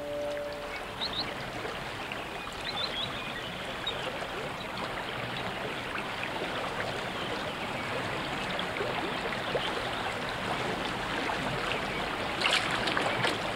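Water running and trickling steadily, with a few short high bird chirps in the first three seconds and a brief cluster of sharp clicks near the end. A held music chord fades out in the first second.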